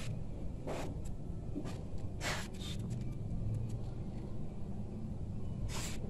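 A steady low vehicle rumble in the background, with a few short scrapes and clicks from motorcycle engine parts being handled by hand.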